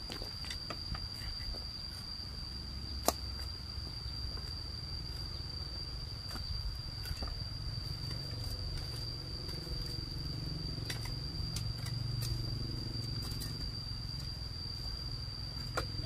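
A steady high-pitched insect trill, with scattered scrapes and knocks from a hoe and a shovel digging into dry, stony soil. One sharp strike about three seconds in is the loudest sound.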